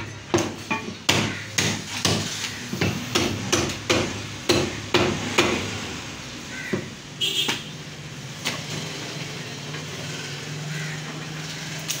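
Butcher's cleaver chopping through a mutton shoulder into a wooden log chopping block: quick sharp blows about two a second, about a dozen of them, stopping after some five seconds, with only a stray knock or two after that.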